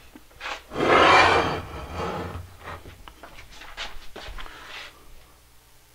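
Handling noise from a hand-held camera being moved about: one loud rasping rub about a second in, then several shorter, fainter rubs and scuffs that die away near the end.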